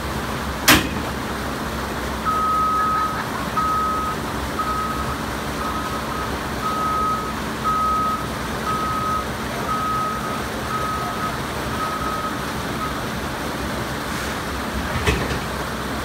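Backup alarm of the heavy machine setting a steel truck bridge in place, beeping about once a second for some ten seconds over a steady engine and the rush of a stream. A sharp knock comes shortly before the beeping starts and another near the end.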